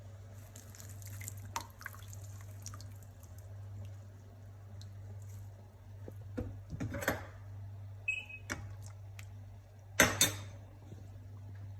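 Kitchen pots and utensils clinking and clattering, with some liquid dripping, over a steady low hum. A few light clicks, then two louder clatters about seven and ten seconds in, the second the loudest.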